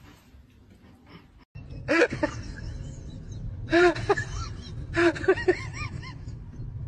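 Faint taps at first, then, after a sudden cut, a steady low rumble with a few bursts of short, high-pitched cries that rise and fall in pitch, in the manner of laughing or squealing.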